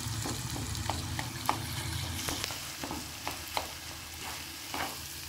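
Wooden spatula breaking up and stirring roasted eggplant in a sizzling tomato-onion masala in a nonstick frying pan, with irregular light taps and scrapes against the pan over a steady frying hiss.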